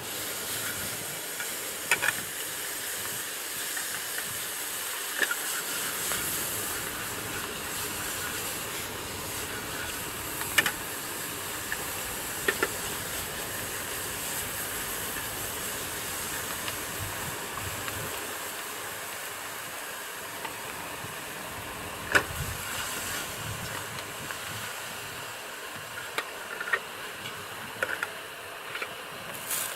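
Steady hiss of food cooking on a gas canister camp burner, with a few sharp clicks and clinks of a utensil against the pan.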